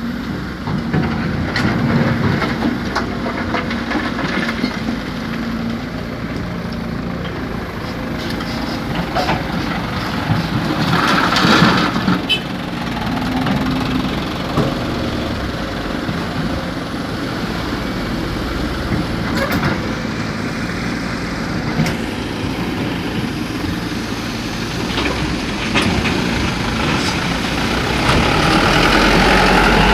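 Heavy diesel machinery of an excavator and dump truck loading site running steadily, with a brief loud hiss about a third of the way in. Near the end the engine noise grows louder and deeper.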